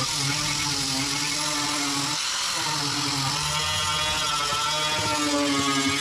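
Handheld electric power tool motor running steadily with a whir, its pitch wavering and dipping under load, with a brief drop about two seconds in.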